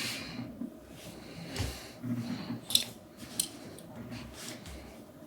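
Packaging being handled and opened by hand: scattered crinkles, rustling and sharp clicks, with a few crisp snaps near the middle.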